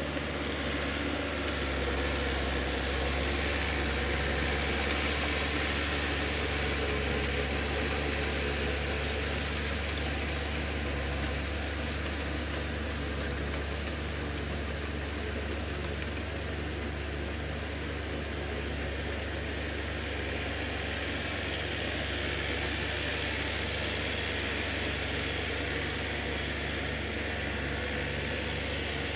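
Compact tractor's diesel engine running steadily under load as it drags a rotary tiller through a flooded rice paddy, churning the mud.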